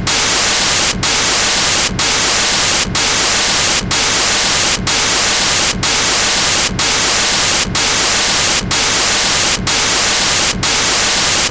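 Loud hiss of static noise, broken by brief regular dropouts about once a second.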